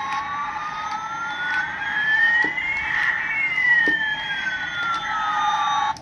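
Electronic sound effect from a toy Airbus A380 airliner's built-in speaker. One whine rises while another falls, the two crossing halfway through over a steady tone, and it cuts off suddenly near the end.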